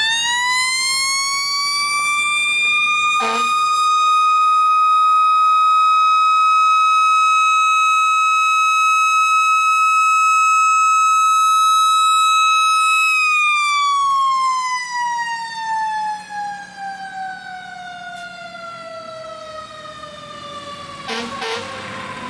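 Fire engine's Federal Q mechanical siren, already winding up at the start to a loud, steady wail that is held for about thirteen seconds. It then slowly winds down, falling in pitch, as the truck pulls away. The truck's engine rumbles under the falling wail.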